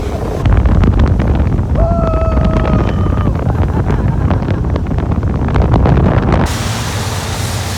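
Wind buffeting the microphone over the low rumble of a vehicle on the move. A brief steady high tone sounds about two seconds in. Near the end the rumble drops away abruptly, leaving a quieter hiss.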